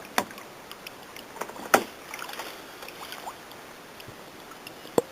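Kayak paddle strokes in the water, with splashes and drips and a few sharp knocks of the paddle against the kayak, the loudest a little under two seconds in.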